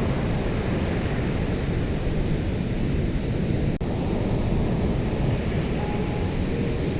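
Ocean surf: a steady, heavy wash of breaking waves with a deep rumble. A split-second dropout a little past halfway sounds like an edit or loop seam in the recording.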